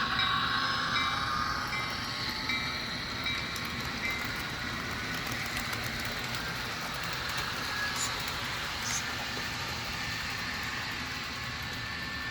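HO-scale F59PH model locomotive's DCC sound decoder playing a steady diesel engine running sound through its small onboard speaker while the model pulls coaches along the track. A few last strokes of the simulated bell are heard at the start.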